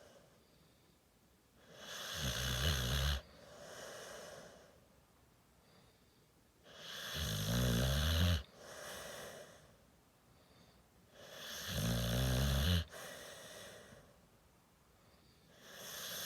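Deep, regular snoring: a loud rattling snore about every five seconds, three in all, with a fourth starting at the end. Each snore is followed by a softer breath.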